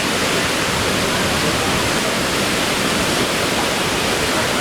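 Kravica waterfall, a cascade of about 28-30 metres, rushing steadily as a dense, even roar of falling water.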